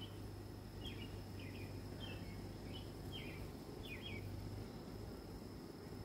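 Low steady hum of honeybees swarming over an open brood frame, with a bird chirping about eight times in quick short calls in the background from about a second in.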